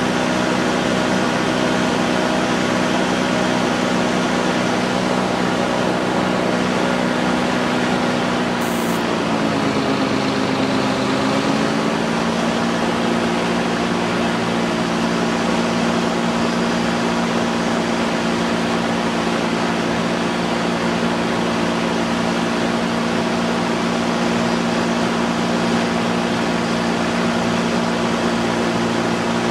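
Light aircraft's engine and propeller droning steadily, heard from on board. The pitch dips for a couple of seconds about ten seconds in, then settles back to a steady drone.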